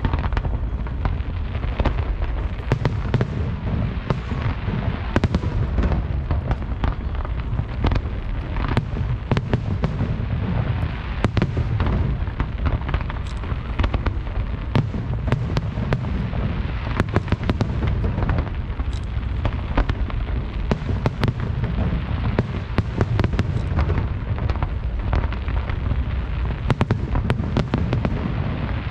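Aerial fireworks display: shells firing and bursting in a dense, continuous barrage of sharp bangs, over a steady low rumble.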